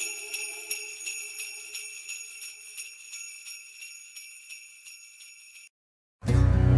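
Sleigh bells shaking in a steady rhythm as the close of a Christmas song fades out. They cut off suddenly just before six seconds in, and after a brief gap a different, slow instrumental piece starts loudly near the end.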